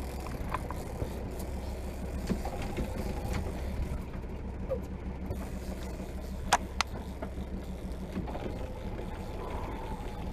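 A boat's engine idling with a steady low hum. There are two sharp clicks close together about six and a half seconds in.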